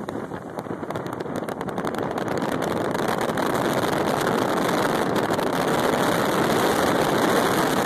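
Storm wind buffeting the microphone as a dense rushing noise full of crackles, growing steadily louder; it cuts off abruptly at the end.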